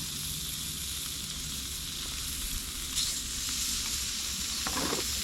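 Beef sizzling steadily on a hot grill.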